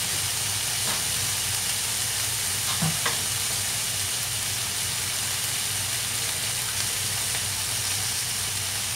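Bacon frying in a cast iron skillet: a steady sizzle and crackle of fat, with a couple of faint knocks.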